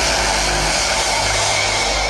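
Loud hardstyle dance music over a club sound system, recorded as a harsh, distorted wash with steady low bass.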